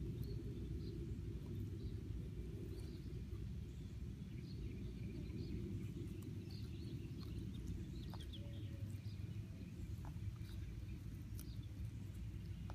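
A Morkie chewing grass, a few faint crunching clicks over a steady low rumble, with faint bird chirps.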